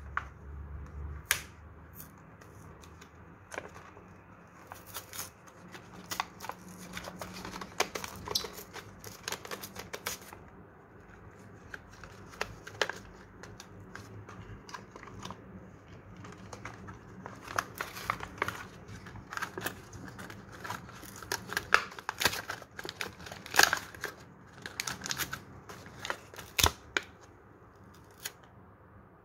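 A plastic blister pack being peeled and torn off its cardboard backing card by hand: irregular crackles, snaps and tearing of card in two busy spells.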